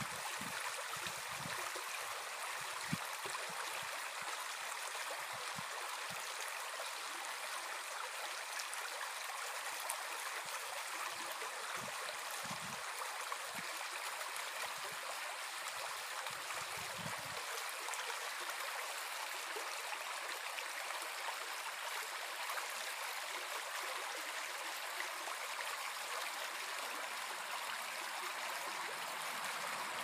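Small brook babbling over stones: a steady rush of running water.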